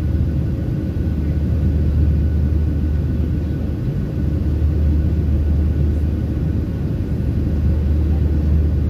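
Steady low drone inside the passenger cabin of a Boeing 737-700, from its CFM56 turbofan engines and the airflow around the fuselage, with a faint steady whine on top.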